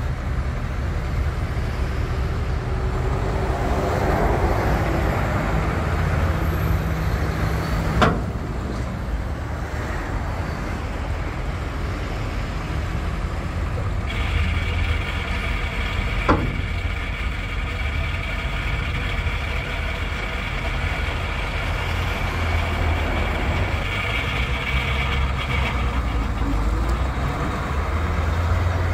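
1970 Ford 8000 dump truck's engine running steadily while the hydraulic hoist tips the dump bed up and back down. A steady high whine runs through the middle stretch, and there are two sharp clicks, one about eight seconds in and one about sixteen seconds in.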